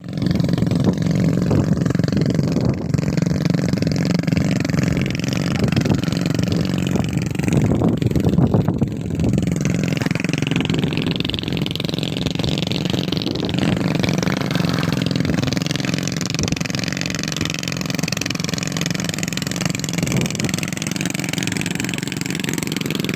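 An engine running steadily under load, its revs rising and falling a little, a bit louder about eight seconds in.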